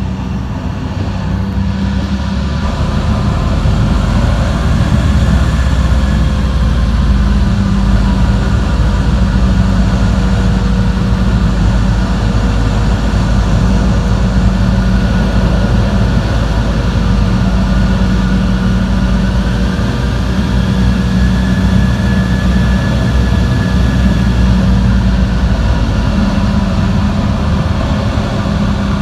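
Steady, loud rumble of a moving vehicle heard from inside, with a faint steady tone and fainter whines that slowly rise and fall.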